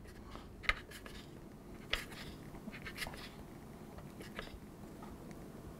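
Faint, sparse clicks and light scrapes of a knurled HPA adapter being turned and tightened by hand onto an air rifle's fore-end, with the hands shifting their grip on the gun.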